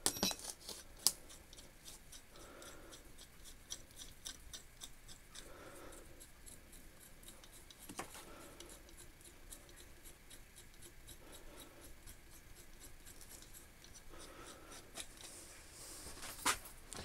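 Faint metallic ticking and rubbing of socket-head screws being turned by hand through a steel bar on a small cast-iron guillotine, with a few sharper clicks near the start, in the middle and near the end.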